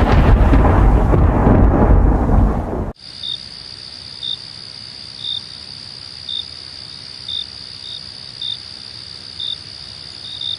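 A loud thunderclap rumbling and fading away over about three seconds. It cuts abruptly to a night chorus of insects: a steady high-pitched drone with a short cricket chirp about once a second.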